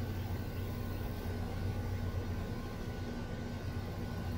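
A steady low mechanical hum, with a few faint steady tones above it and no distinct knocks or splashes.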